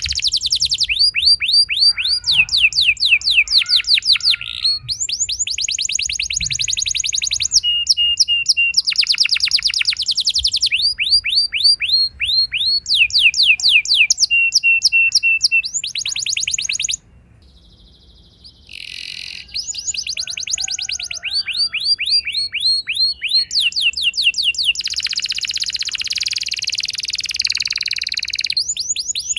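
Domestic canary singing a long song of fast, evenly repeated trills (rolls), switching to a new pitch and note type every second or two. There is a pause of about a second and a half just past the middle.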